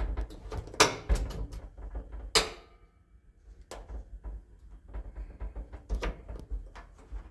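A series of sharp knocks and clunks over a low, uneven rumble. The loudest come about a second in and near two and a half seconds, with more scattered ones later.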